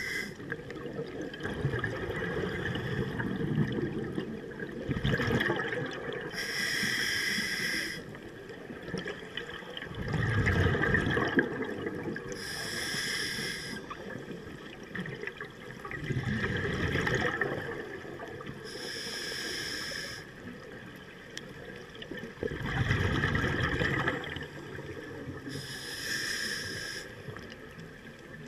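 A scuba diver breathing underwater through a regulator. A short hissing inhale comes about every six seconds, four times, and each is followed a few seconds later by a low rush of exhaled bubbles.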